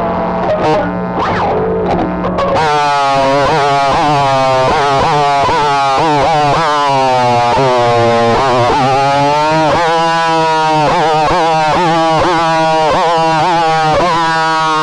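Electric guitar played through distortion, its notes sliding up and down in pitch over and over above a steady low drone. About two and a half seconds in, the playing changes from a quieter opening to full distorted playing.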